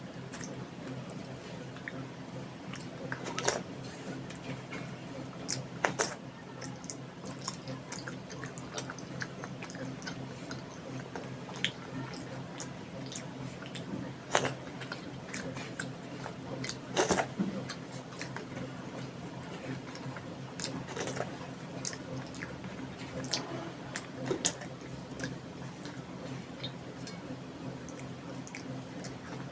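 Close-up mouth sounds of eating soft spicy khichdi and egg curry: wet chewing with scattered sharp smacks and clicks, over a steady low hum.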